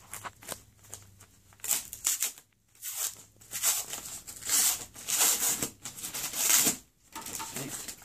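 Plastic shipping mailer bag crinkling and rustling in a run of irregular bursts as it is handled and pressed to get it open.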